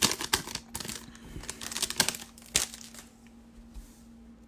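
Foil wrapper of a 2019 Panini Certified football card pack crinkling sharply as it is torn open and the cards are slid out. The crinkling dies down after about three seconds, leaving a faint steady hum underneath.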